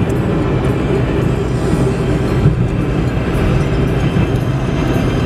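Steady low rumble of a car's engine and tyres heard from inside the moving cabin, with small knocks and rattles as the car bounces over the street.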